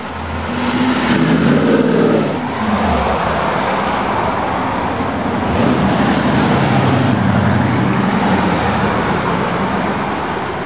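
V8 muscle car accelerating past with a loud exhaust. The engine note climbs for about two seconds, drops at a gear change, then climbs again as the car pulls away.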